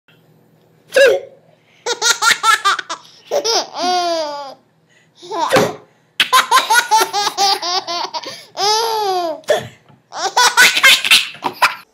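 Baby laughing hard in several bouts of quick, chopped laughs, with a couple of longer drawn-out laughs whose pitch glides.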